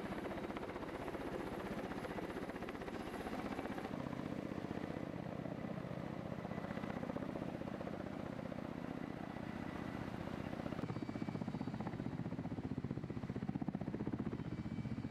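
Kamov Ka-52 coaxial-rotor attack helicopters flying low and hovering, with steady rotor noise and a rapid, even blade beat.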